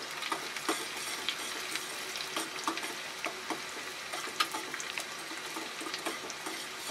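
Sliced onions and cumin seeds sizzling in hot oil in a stainless steel pan for a tadka, with a steady hiss. A fork stirring them clicks and scrapes against the metal pan many times.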